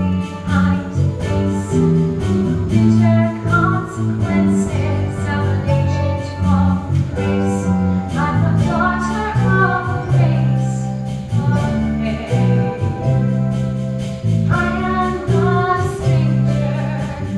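A woman singing a musical-theatre ballad live, accompanied by a small band.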